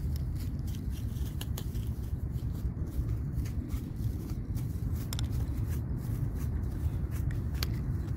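Footsteps crunching and rustling through dry grass, with many small irregular crackles over a steady low rumble.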